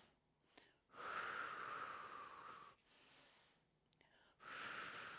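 A woman breathing audibly in time with a slow yoga movement: two long breaths about three seconds apart, with a softer one between.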